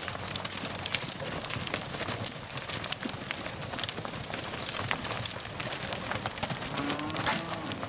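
Hooves of a mob of black cattle walking and shuffling across a dirt yard, a busy, irregular patter of many small knocks and clicks.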